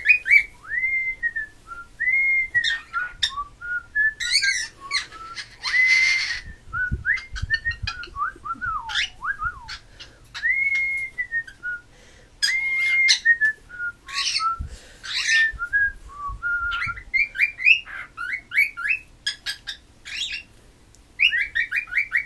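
Pet cockatiel whistling a long, varied string of rising-and-falling notes and quick warbling runs, broken twice by a short harsh screech, about six seconds in and again around fifteen seconds.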